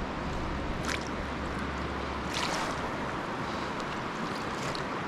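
Steady rush of flowing stream water, with two brief sharp sounds about a second and about two and a half seconds in.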